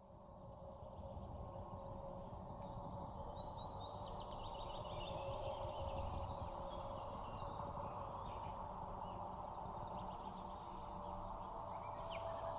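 Birds chirping in quick repeated trills over a steady hum and low rumble of background noise, fading in at the start.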